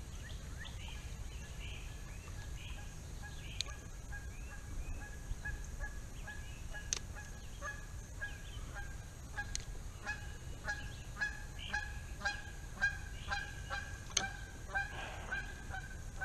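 Geese honking, a run of short calls that comes quicker and louder through the second half, over a steady low rumble.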